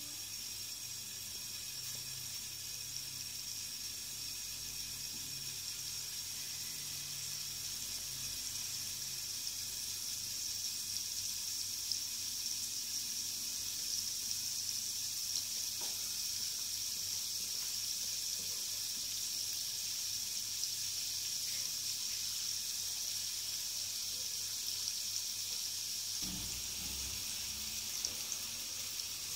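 Butter sizzling in a frying pan: a steady hiss with a few small pops.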